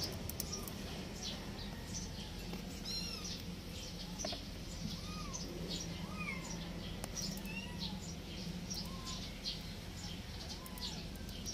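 Scattered short, high animal calls, each rising and falling in pitch, over a steady low hum.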